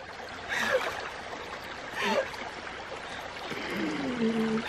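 Stream water running and trickling in a shallow rocky pool, with a couple of brief soft sloshes as a person climbs out of the water. A low falling tone sounds near the end.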